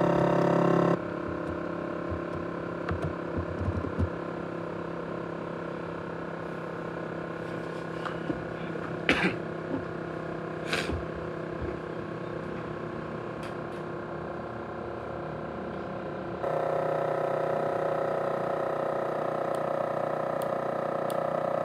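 ASUS X543UA laptop cooling fan running with a steady whine of several tones, the noise the owner likens to a jet engine. It drops back about a second in, with a few faint clicks in the middle, then speeds up again louder about three-quarters of the way through.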